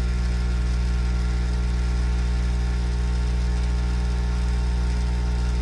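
Hot-air reflow station running steadily, its blower giving a low, even hum with a faint airy hiss, as the nozzle heats a small circuit board to remelt and reflow its solder joints.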